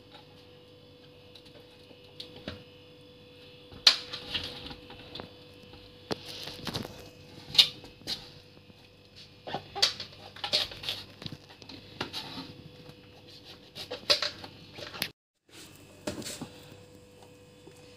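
A kitchen knife cutting and peeling a honey pumpkin against a wooden tray: irregular sharp clicks and scrapes, starting about four seconds in, over a faint steady hum.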